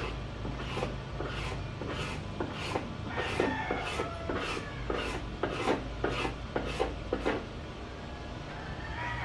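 Hand tool rasping back and forth across wood in even strokes, about two to three a second, stopping a couple of seconds before the end, over a steady low hum.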